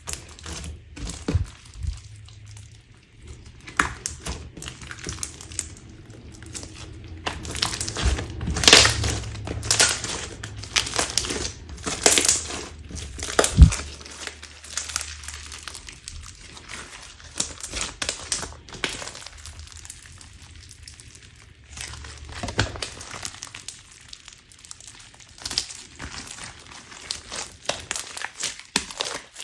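Clear crunch slime being squeezed and kneaded by hand: a dense, irregular run of crackling and popping, loudest and busiest about a third of the way in, then sparser and quieter.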